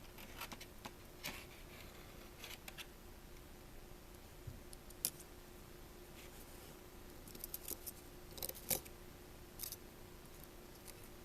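Faint, scattered small clicks and ticks of hand tools and small metal parts as the connector bracket is fitted back into an iPhone 5c, with a quick cluster of clicks near the end.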